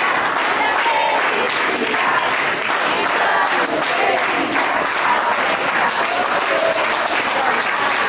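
A crowd of party guests applauding, with scattered voices mixed in.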